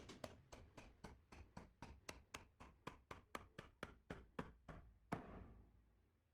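Faint, quick, even taps on wood, about four a second, as from a mallet or tool working a mortise and tenon joint, ending a little past five seconds in one louder knock.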